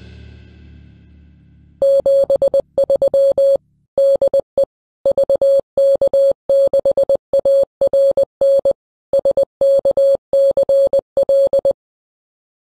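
Morse code (CW) sent as a single tone of roughly 600 Hz, keyed on and off in short and long elements for about ten seconds. It follows the last of the theme music fading out during the first two seconds.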